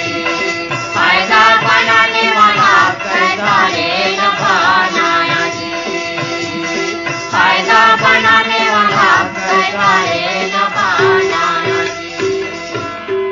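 Instrumental passage closing a Chhattisgarhi folk song: a quick, wavering melody over a steady held tone and a regular drum beat, growing quieter near the end.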